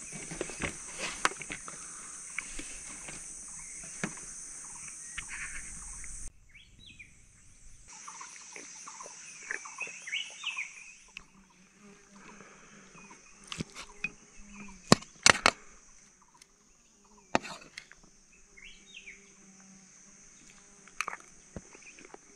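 Rural outdoor ambience: insects droning steadily, cutting off abruptly about six seconds in, with birds chirping now and then. A few sharp clicks stand out in the second half.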